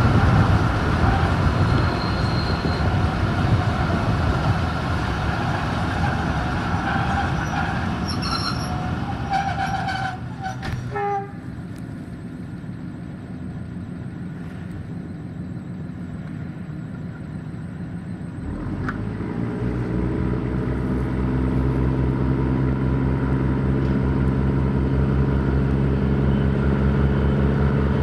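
Old Malaxa diesel railcar (DMU) heard from an open window: wheels and engine running, a brief high-pitched squeal around eight to ten seconds in as it slows, a sudden drop to a quieter idle at about eleven seconds as it stops at a halt, then the diesel engine throttles up from about nineteen seconds with a steady drone as it pulls away.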